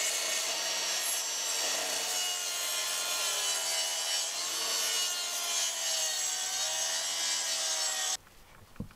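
Makita track saw running and cutting through a sheet of sealed plywood along its guide rail: a steady motor whine over the noise of the blade in the wood. It stops suddenly about eight seconds in.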